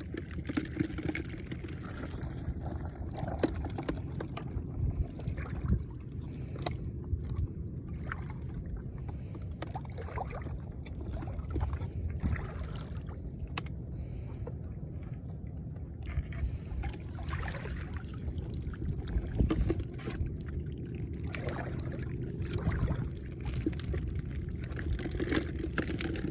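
Sea water sloshing and splashing at a fish corral net, with scattered small splashes over a steady low rumble.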